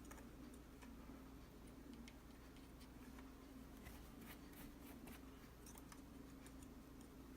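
Near silence: room tone with a faint steady hum and a few faint, light clicks scattered through it.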